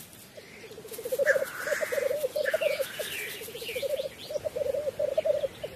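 Black grouse male's bubbling lek song: a low, rapid, cooing warble in repeated phrases, starting about a second in, with higher bird calls above it.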